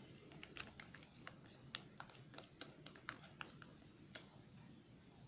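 Faint, quick, irregular clicking of chopsticks against a bowl while stirring a glue-and-shampoo slime mixture.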